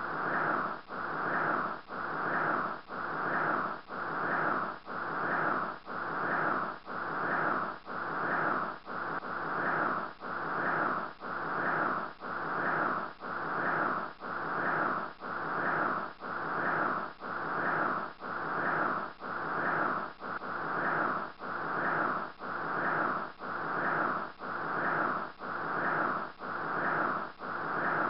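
A rhythmic whooshing noise that swells and fades evenly, about three times every two seconds, like a looped background track.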